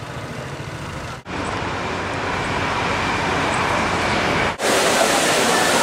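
City street traffic noise with cars and scooters, broken by two abrupt cuts. After the second cut, a louder, steady rush of fountain water.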